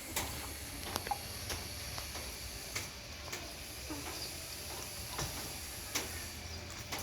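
Puppies suckling at their mother: irregular small wet clicks and smacks about once a second over a steady hiss, with a faint squeak or two.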